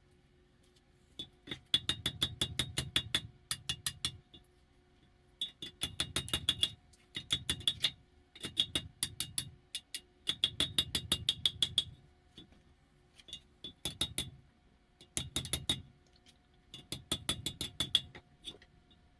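Hand hammer striking a hot bar of car coil-spring steel on the anvil to bend it into shape. The blows come in quick runs of about six a second with short pauses between, and each blow rings.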